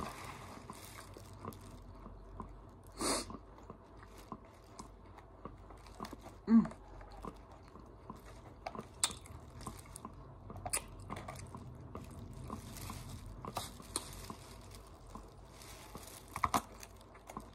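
Close chewing and crunching of a tostada salad with crisp fried tortilla shell, with wet mouth smacking and light clicks of a plastic fork against a clear plastic container. The loudest moment is a short mouth sound with a falling pitch about six and a half seconds in.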